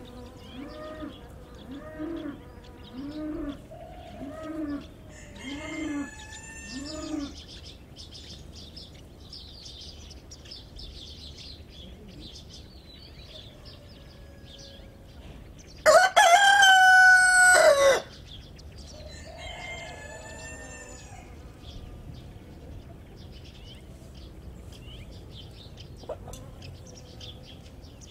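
A hen clucking in a regular run of short clucks, about two a second, for the first several seconds. A rooster crows loudly once for about two seconds past the middle. Softer clucking and faint high chirping go on throughout.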